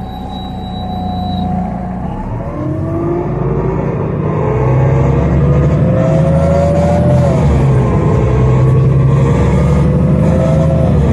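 Iveco Cursor 8 CNG engine and Voith D854.5 automatic gearbox of a Solaris Urbino 12 city bus accelerating, heard from inside the passenger cabin. The pitch climbs, drops at an upshift about two-thirds of the way through, climbs again and drops once more near the end.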